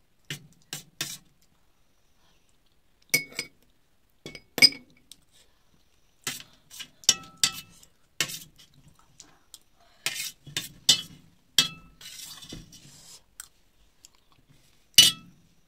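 Metal spoon clinking and scraping against a stainless steel plate while scooping up the last of the food: a dozen or so sharp, irregular clinks, some ringing briefly.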